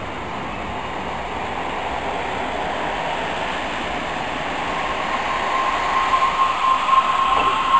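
Electric multiple-unit commuter train pulling away from a standstill: a steady running noise builds, and about five seconds in a high traction-motor whine sets in and grows louder as the train gathers speed.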